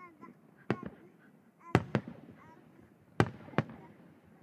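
Aerial firework shells going off: sharp booms in three close pairs, each with a rolling echo tail.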